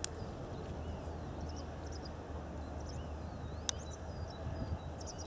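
Outdoor ambience: small birds chirping with short swooping calls over a steady low rumble, with the trotting horse's hoofbeats on the soft arena footing only faint. A sharp click at the start and another about three and a half seconds in.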